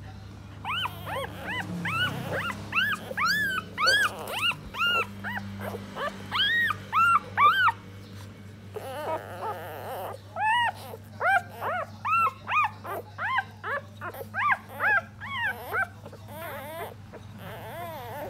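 Newborn puppies squeaking and whimpering while nursing: quick series of short, high cries that rise and fall in pitch, several a second, in two bouts with a pause about eight seconds in. A low steady hum runs underneath.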